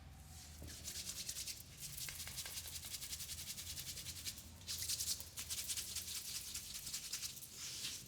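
Fast, even scratchy rubbing strokes, several a second, of hands working through hair and scalp in a vigorous head massage, briefly louder about five seconds in, over a faint low hum.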